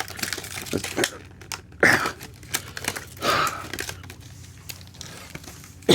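Stiff plastic clamshell packaging crackling, clicking and tearing as it is pried and cut open by hand, with a couple of strained breaths or grunts from the effort.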